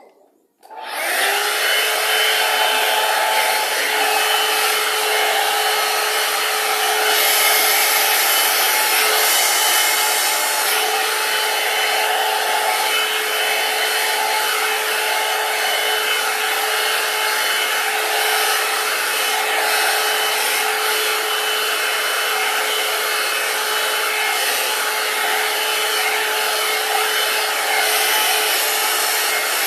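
Hand-held hair dryer switched on about a second in, quickly coming up to speed. It then runs steadily, a rush of air with a constant whine from the motor and fan.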